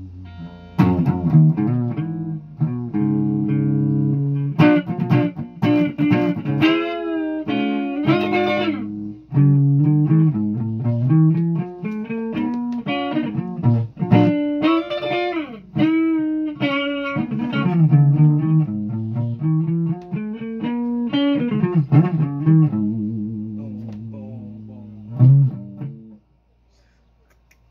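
Guitar played solo: a melody of plucked notes with several string bends, stopping suddenly near the end.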